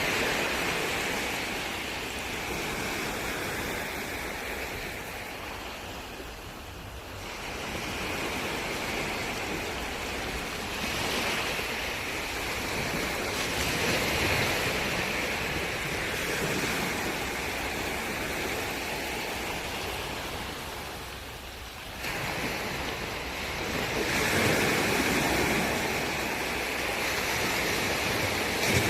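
Ocean waves washing ashore: a steady rushing of surf that swells and falls back every few seconds, with an abrupt jump in level about three-quarters of the way through.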